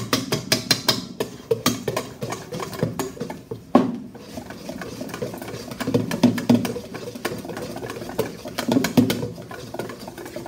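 Wire whisk beating a thick, foamy shaving-cream-and-flour paste in a metal mixing bowl: quick rhythmic clinks of the wires against the bowl, fastest and loudest in the first second, then softer stirring and scraping, with one sharper knock against the bowl near four seconds in.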